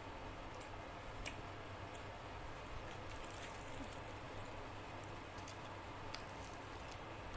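Close-up eating sounds: soft wet chewing with scattered small mouth clicks, and fingers tearing a piece of fried luchi. A steady low hum runs underneath.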